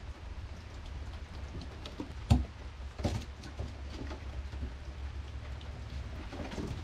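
Steady rain falling on a wet deck and puddles, with scattered sharp drop hits; the loudest knock comes about two seconds in, and another follows a second later.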